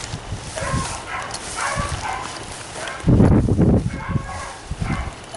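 A pack of beagles baying repeatedly while running a chase on a track. A loud low rumbling burst a little after three seconds in, like wind or handling on the microphone.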